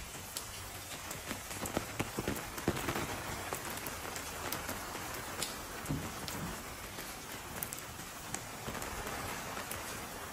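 Steady rain falling on wet stone paving, with many scattered sharp ticks of single drops.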